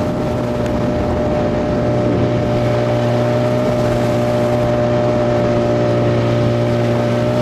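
Outboard motor of an inflatable motorboat running steadily under way with a continuous hum. The boat is going slowly rather than planing. The engine picks up slightly about two seconds in.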